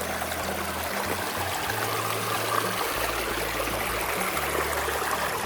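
Water running over rocks in a small spring-fed stream, a steady rushing trickle.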